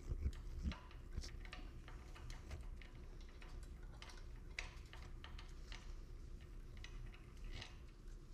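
Faint, scattered light metallic clicks and ticks of small hand tools and hardware being handled at an e-bike's front fork crown, a hex key and wrench working the fender bolt and nut, with a few sharper clicks in the first second.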